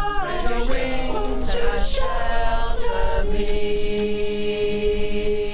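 Choir singing unaccompanied, the voices moving through the closing 'and love' of the chant, then holding a steady final chord from about three seconds in.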